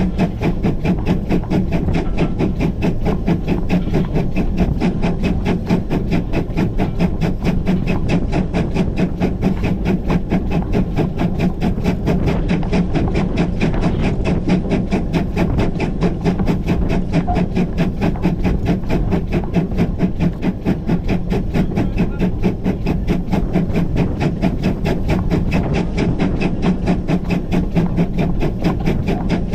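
GWR Grange class two-cylinder 4-6-0 steam locomotive No. 6880 Betton Grange heard from its footplate while working along the line: a steady, fast, even rhythm of beats that keeps going without a break.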